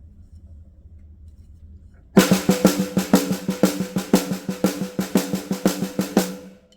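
A drum played in a quick run of strokes, about four or five a second, starting about two seconds in and stopping just before the end. Each hit leaves a short pitched ring.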